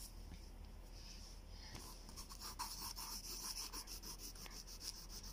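Faint rustling and scratching of paper as a lined notebook's pages are handled, with a run of light scratchy ticks in the middle.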